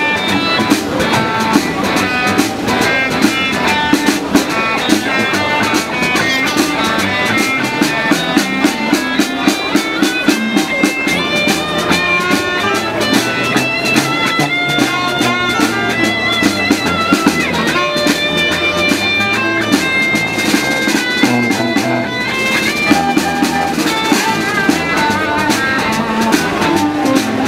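Street band playing an upbeat, funky tune with a steady percussion beat under a melody of short notes.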